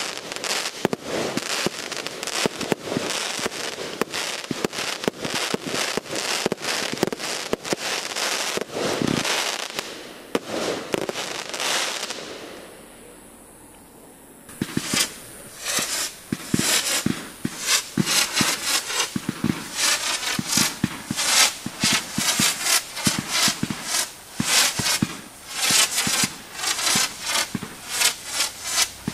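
Aerial fireworks: a rapid run of shell bursts and crackling, dying away about twelve seconds in, then a fresh barrage of bangs starting a few seconds later.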